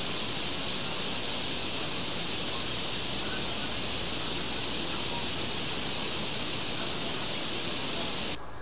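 Steady high-pitched hiss with no speech over it, cutting off abruptly near the end.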